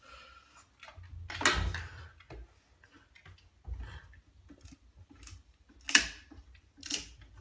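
A long thin stick, held crosswise in a French bulldog's mouth, knocking and scraping against a wooden door frame and wall. It makes several sharp knocks, the loudest about a second and a half in and near six seconds, with a lighter one near seven seconds.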